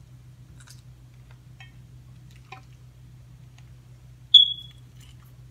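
A single short, loud, high-pitched beep about four seconds in, over a steady low hum and faint clicks of eating and a fork on a bowl.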